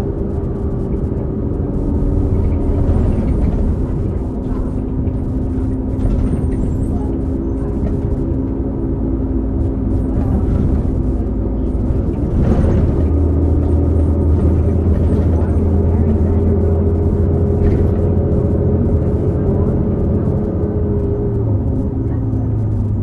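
New Flyer XD40 bus running under way, its Cummins L9 diesel engine under a steady whine from the Allison B3400xFE transmission: an odd transmission bearing noise shared by several buses of this series. A brief rush of noise comes about halfway through, and the low engine sound grows stronger after it.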